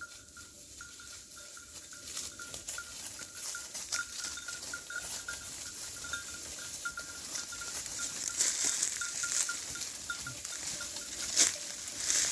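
Flock of merino sheep coming home: many small clinks and pattering sounds that grow louder as the flock approaches.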